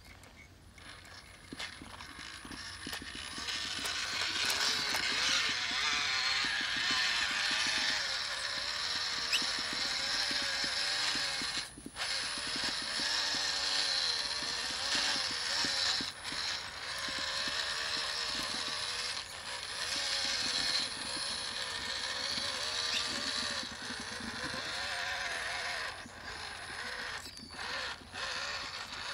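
WPL B36 Ural 4320 6x6 RC truck's electric motor and gear drivetrain whining and grinding as it crawls through mud. The pitch rises and falls with the throttle, with a few brief drops where the throttle eases off.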